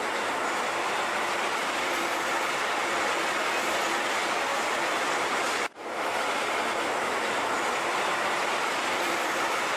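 Commuter train running: a steady noise of wheels on rails, cut off for an instant a little past the middle.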